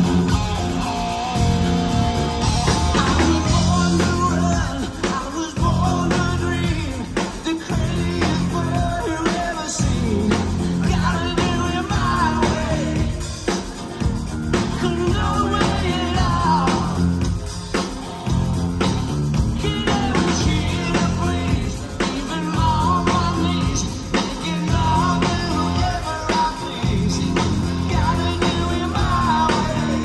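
Live rock band playing: electric guitar, bass and drum kit with a male lead vocal singing over them.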